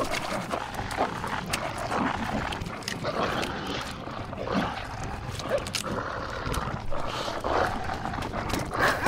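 Animal growling and snarling in irregular bursts, the sound effects of a werewolf confronting a dog.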